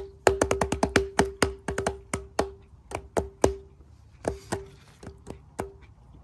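Background music made of quick, uneven wood-block-like taps, each ringing on the same note, with a brief lull about four seconds in.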